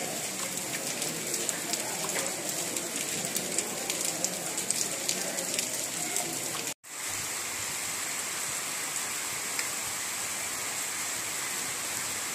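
Heavy rain falling on waterlogged ground and puddles, an even hiss with many small drop hits. The sound cuts out abruptly for a moment about seven seconds in, then resumes as a steadier hiss.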